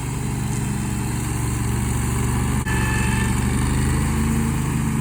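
Engine of a remote-controlled slope mower running steadily as it works up a steep hillside, with a brief click a little past halfway.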